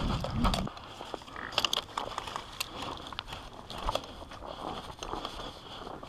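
Footsteps crunching over slippery, snowy ground with small clicks and rattles of carried gear, irregular, as an airsoft player walks; a low rumble on the microphone in the first moment.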